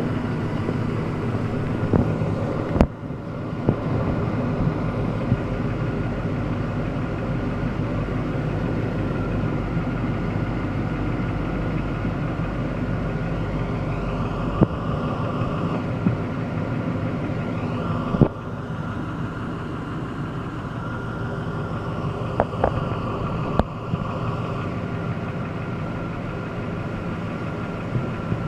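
Jasper remanufactured 5.3-litre V8 engine running steadily, with a few sharp clicks now and then; it carries an unidentified noise that the owner is trying to track down.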